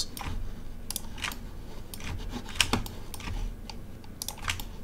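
Irregular, scattered clicks of a computer keyboard and mouse while edge loops are being selected in 3D software.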